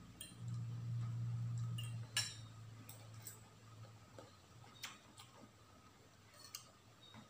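Metal spoon and fork clinking and scraping against ceramic bowls while eating, a scatter of light clicks with the loudest about two seconds in. A faint low hum sounds through the first two seconds and fades away.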